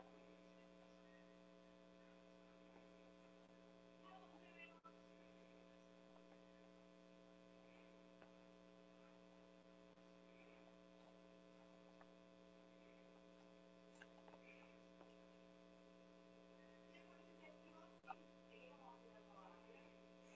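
Near silence: a faint, steady electrical hum, with a few faint clicks.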